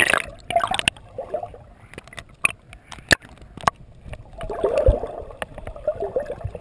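Water moving around an underwater camera's housing: muffled gurgling and rushing that swells at the start and again in the second half. Three sharp clicks come about half a second apart near the middle, and a low thump about five seconds in.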